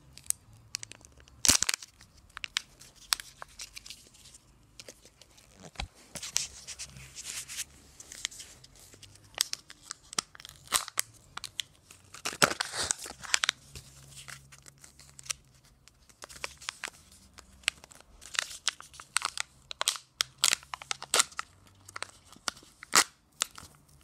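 A Kinder Joy egg being unwrapped and opened by hand: foil crinkling and tearing, with short sharp plastic clicks and crackles scattered throughout. A longer stretch of tearing comes about halfway through.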